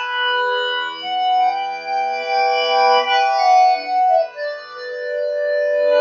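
Intro music: sustained keyboard chords in an organ-like tone, the notes held and changing every second or so, with no beat.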